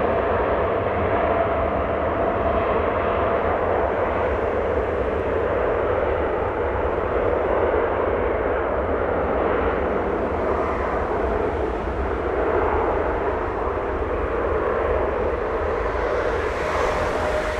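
Boeing 787-9 jet engines running steadily, a continuous broad engine rumble with a faint whine over the first few seconds.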